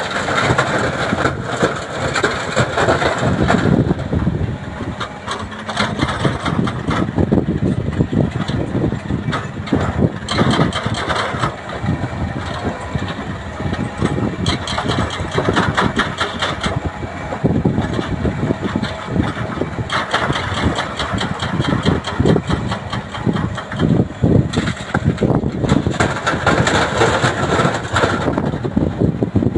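Doosan DX340LCV excavator's diesel engine running and rising and falling under hydraulic load as it digs and loads, with frequent knocks and clatter of rock dropping into a dump truck's bed.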